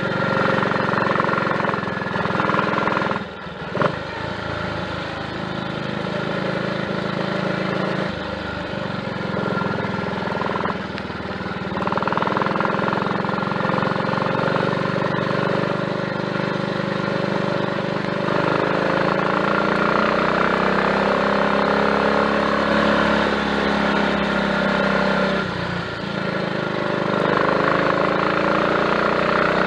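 Triumph Tiger Cub's single-cylinder four-stroke engine running on the road, its note rising and falling, with brief dips several times as the throttle is closed. It runs without misfiring on a new carburettor slide, needle, needle jet and main jet, though the mixture still runs somewhat rich.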